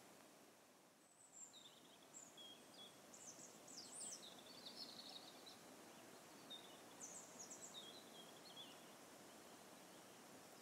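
Faint bird chirps and short trills, coming in scattered groups over a quiet background hiss.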